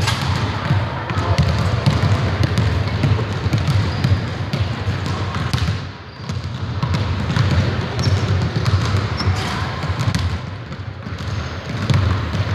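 Several basketballs being dribbled on a hardwood gym floor at once, a dense, uneven patter of thuds, thinning briefly about halfway through.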